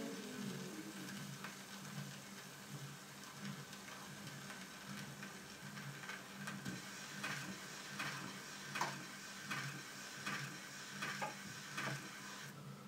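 Gramophone pickup riding the run-out groove of a record on a Garrard 201B turntable after the music has ended: faint surface hiss and crackle over a low steady hum, with a click repeating about every three-quarters of a second, once per turn. The hiss cuts off suddenly near the end as the pickup is lifted.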